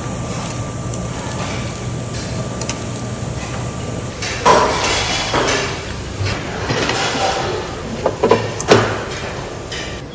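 A steady hiss with a few sharp knocks and clatters, the loudest about four and a half seconds in and again near the end.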